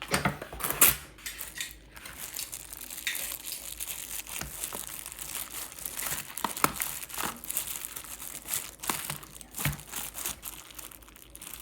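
Crinkling and rustling of packaging such as plastic or paper being handled, with many small sharp crackles throughout.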